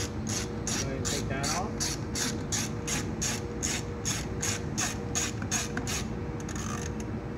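Socket ratchet on a long extension clicking steadily, about three clicks a second, as it backs out a 10mm bolt. The clicking stops about six seconds in.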